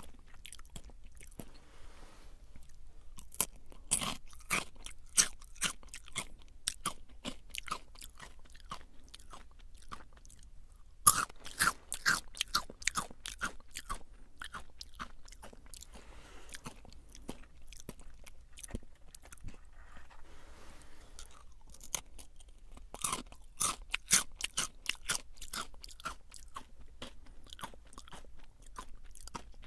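Close-up chewing of Jagarico crunchy potato sticks: a run of sharp crackling crunches, with louder bursts of fresh bites about a third of the way in and again late on, and softer chewing between them.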